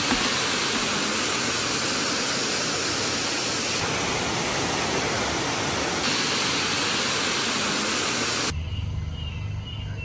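Annandale Waterfall pouring into its pool: a steady rushing hiss of falling water. About eight and a half seconds in, it gives way to a quieter low rumble.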